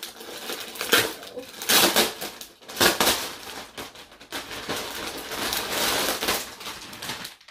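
Plastic poly mailer bag crinkling and rustling as it is opened and its contents pulled out, with several louder sharp crackles.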